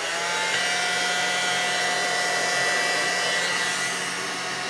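Hot air rework gun blowing steadily on a circuit board, its fan giving an even rush with a whine in it, as it heats the solder to lift off a small EEPROM chip.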